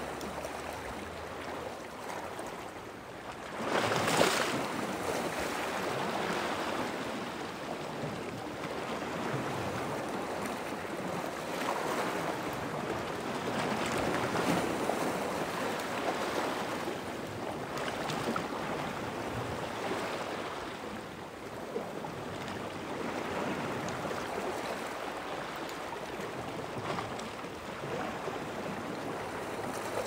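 Sea waves washing in at night, a steady rushing wash that swells and eases every few seconds, with the strongest wave breaking about four seconds in.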